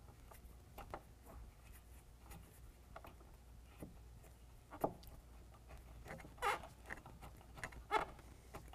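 Small metal clicks and light rubbing as a tube door's steel door pin is worked around by hand to get its hardware threaded on. A few louder clicks come near the middle and toward the end.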